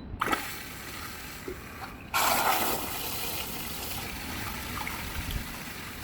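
N20 smart toilet doing its small flush. Water starts running just after the start, surges loudly into the bowl about two seconds in, then keeps flowing steadily.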